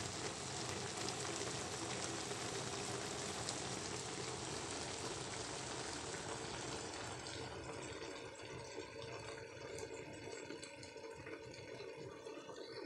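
Milkfish paksiw simmering in a wok, its shallow vinegar broth bubbling and sizzling with a steady hiss that thins out about seven seconds in.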